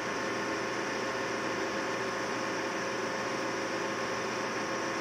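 Metal lathe running steadily under power, its spindle turning for a run-out check. It gives a steady hum with a whine of several held tones from the motor and spindle drive.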